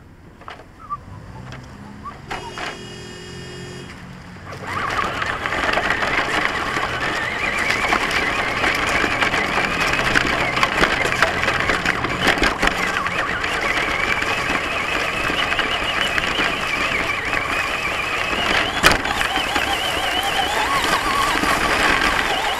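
Traxxas Stampede RC monster truck heard from a camera mounted on it: quiet at first with a few clicks and a brief tone, then about five seconds in it drives off and its motor and drivetrain whine steadily, the pitch wavering up and down with speed, over the rattle and scrub of the truck on rough ground.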